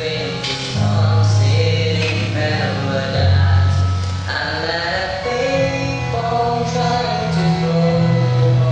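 Music: a song with singing over sustained bass notes that change every couple of seconds.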